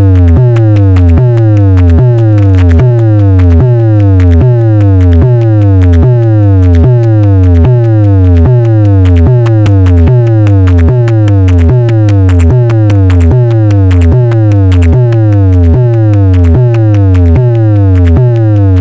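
Electronic sound-check track played loud through an 18-inch speaker box: a deep bass note repeats about once a second, each with a falling synth sweep above it.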